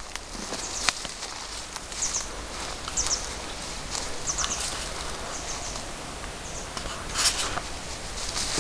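Rubber-booted footsteps scuffing on concrete and dry undergrowth, with scattered knocks and rustles over a steady outdoor hiss. A few short high bird chirps come about two, three and four and a half seconds in.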